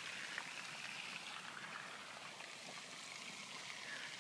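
Faint steady hiss of outdoor background noise, even throughout, with no distinct events.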